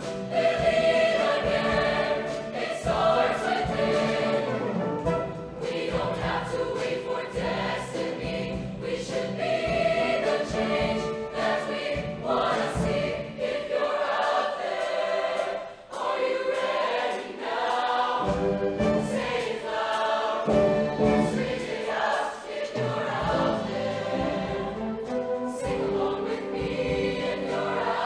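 Show choir singing in full voice over musical accompaniment. The bass of the accompaniment drops out for a few seconds about halfway through, then returns.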